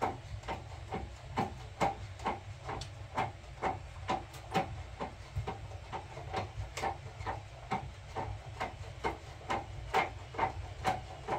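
Rapid, fairly even knocks or taps, two to three a second, over a low steady rumble.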